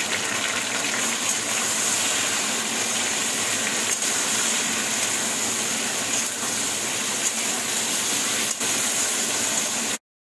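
Chunks of potato, pumpkin and cauliflower frying in mustard oil in a kadai, a steady sizzle. The sound drops out abruptly for a moment near the end.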